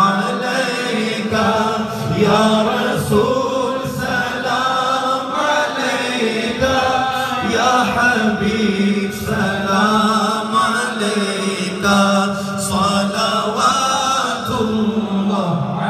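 Group of men chanting and singing: a lead voice rising and falling in long phrases over a steady low note held underneath by the others.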